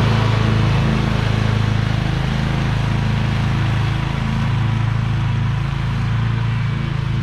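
Toro Titan zero-turn mower's engine running steadily with the cutting blades engaged, mowing the lawn.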